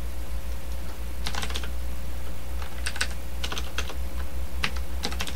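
Computer keyboard being typed on in short bursts of keystrokes, including Backspace presses, with pauses between the bursts, over a steady low hum.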